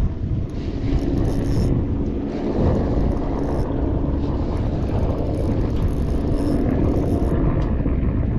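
A boat's motor running steadily with a low rumble and a faint steady hum.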